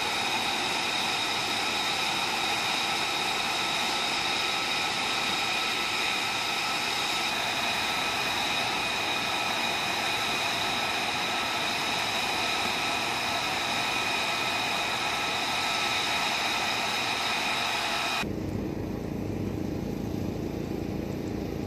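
F-35B's F135 turbofan idling: a steady jet whine, several high held tones over a rushing hiss. Near the end it cuts abruptly to a lower, duller jet rumble heard from farther off.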